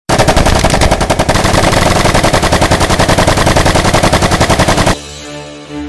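Loud machine-gun fire sound effect, a very fast, even rattle of shots, cutting off abruptly about five seconds in. Soft sustained orchestral-style music takes over.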